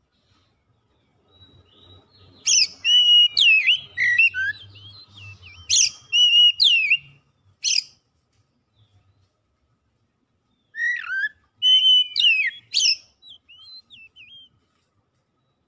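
Oriental magpie-robin (kacer) singing: loud, varied whistled phrases with quick rising and falling sweeps. The song comes in two bouts, with a pause of about three seconds between them.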